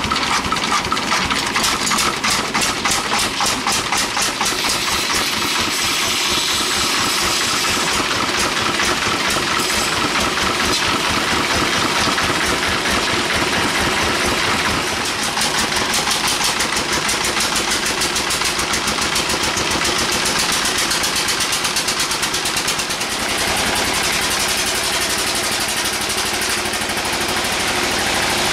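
Engine of sawmill machinery running steadily with a rapid, even firing pulse, dipping slightly in level about halfway through and again near the end.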